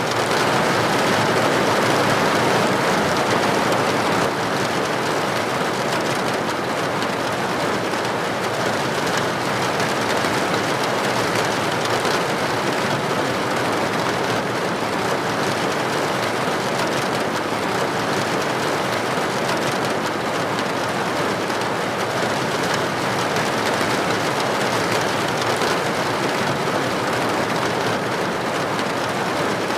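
Steady rain falling, an even hiss that holds at one level throughout without breaks or separate drops standing out.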